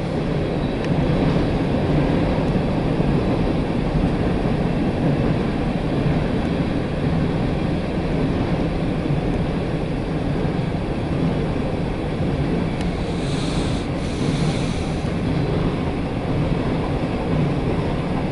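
Empty coal hopper cars of a freight train rolling past: a steady rumble and rattle of steel wheels on the rail.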